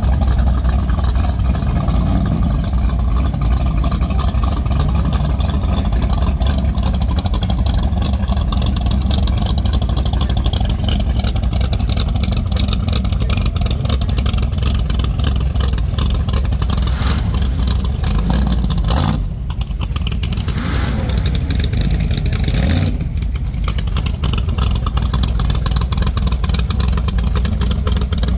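Car engines running with a steady low rumble and some revving.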